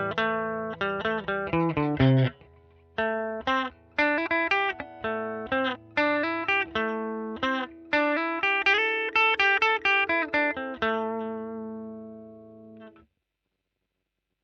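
Clean electric guitar: a Strat-style parts guitar played through the Amplifire's Fender Deluxe Reverb amp model with no fuzz. It plays picked single notes and chords in a flowing run. The last chord rings out and fades, stopping about 13 seconds in.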